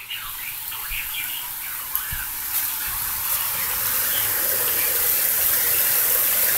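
Heavy rain and wind of a severe thunderstorm squall line: a steady rushing hiss that grows steadily louder.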